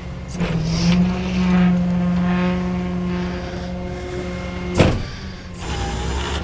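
Tow truck engine running; its pitch rises about half a second in and then holds steady as it pulls under load. There is a single sharp clunk a little before the five-second mark.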